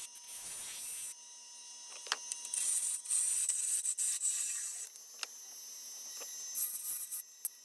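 Bowl gouge cutting the face of a spinning reclaimed barn-wood disc on a wood lathe. A high, hissing scrape swells and fades as the tool moves across the wood, with a few sharp ticks.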